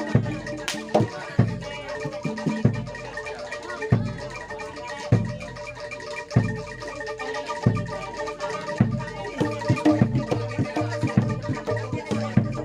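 Live Javanese gamelan music accompanying kuda lumping: metal mallet instruments ringing held notes over a deep drum stroke that comes about once every 1.3 seconds.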